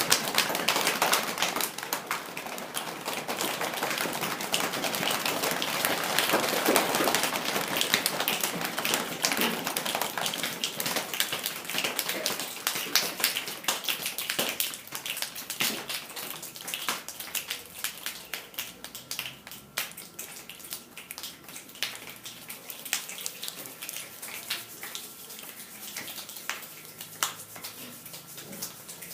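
Rain sound effect: a dense patter of many small quick taps, heavy at first and thinning to scattered drops in the second half.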